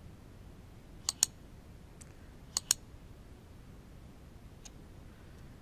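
Two quick pairs of sharp mouse clicks about a second and a half apart, with a faint single tick later, over a quiet low hum.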